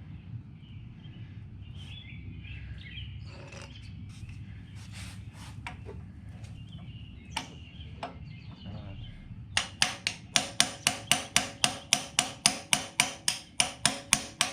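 Steel hammer rapidly tapping a socket to drive a pilot bearing into the crankshaft: a fast, even run of sharp metallic strikes, about four to five a second, starting near ten seconds in. Before that, a low steady hum with scattered small clicks and knocks of tools being handled.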